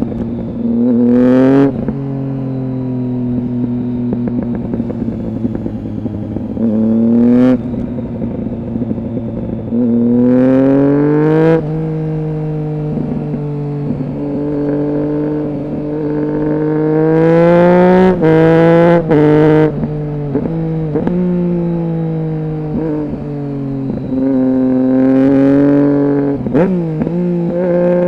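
2008 Triumph Street Triple 675's three-cylinder engine running through a Roadsitalia aftermarket exhaust with one of its two dB killers fitted. It runs steadily for long stretches, broken by about six sharp rises in pitch and loudness under throttle that cut off abruptly.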